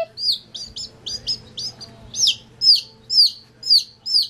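A lone young chick peeping loudly and insistently, about two high, downward-sliding peeps a second, with a run of quicker, shorter peeps in the first couple of seconds. These are the distress or contact calls of a chick separated from its flock.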